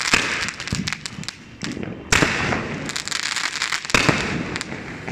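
Aerial fireworks bursting, with sharp bangs and bouts of rapid crackling. Two louder bangs come about two and four seconds in.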